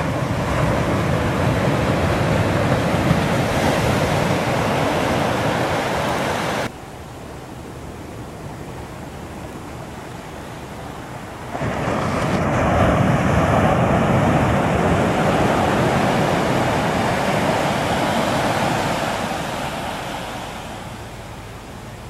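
Ocean surf washing up a beach: a steady rush of breaking waves and foam. About seven seconds in it drops suddenly to a quieter wash. Near the middle it comes back loud, then swells and fades toward the end.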